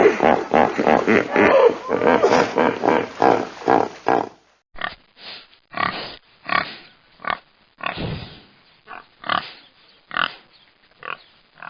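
Pigs grunting: a dense run of rapid grunts, then after a cut about four seconds in, separate short grunts roughly once a second.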